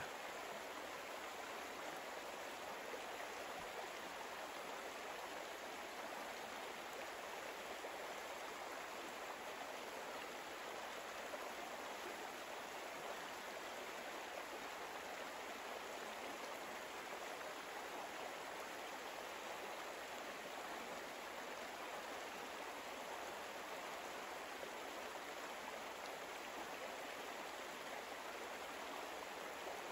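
Soft, steady rush of flowing water, like a stream, as an unbroken relaxation background.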